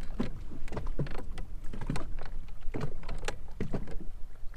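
Small waves slapping irregularly against the side of a boat's hull, about two slaps a second, over a low steady rumble.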